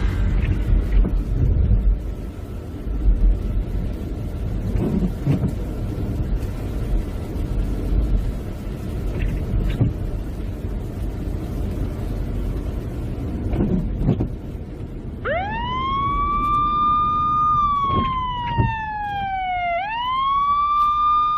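Steady low rumble of road and rain noise heard inside a moving car, with a few faint knocks. About fifteen seconds in, an emergency vehicle siren starts: it wails up, holds, falls slowly, then rises again near the end.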